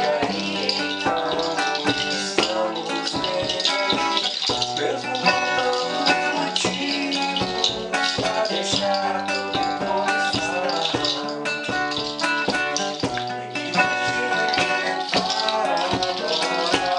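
Live Brazilian song: a woman singing over acoustic guitar, with a shaker rattling in a steady rhythm.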